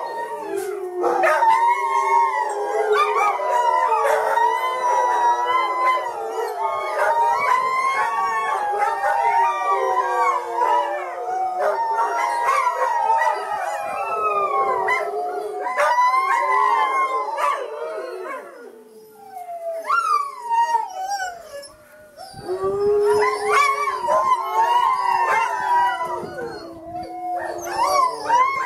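A barn full of sled dogs howling together, many overlapping voices rising and falling in pitch. The chorus thins to a few voices for a few seconds about two-thirds of the way through, then swells again.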